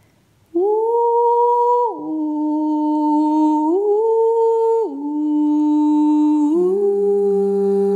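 A woman's voice toning in long, steady hummed notes, beginning about half a second in. The pitch steps down, back up, down again, and settles on a lower note near the end.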